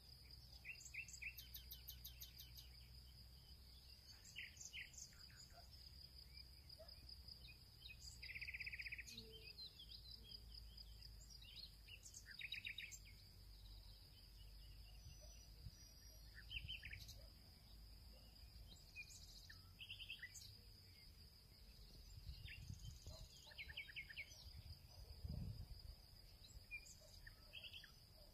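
Faint background ambience: scattered short bird chirps and trills over a steady high-pitched thin drone.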